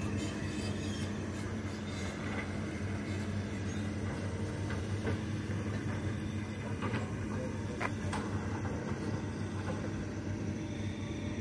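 An engine running steadily at constant speed, a low even hum, with a few faint knocks.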